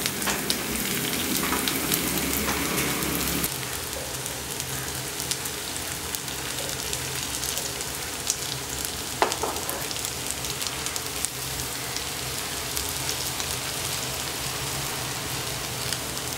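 Hot oil sizzling and crackling in a non-stick frying pan as small noodle vadas shallow-fry, with a couple of light knocks as patties are laid in.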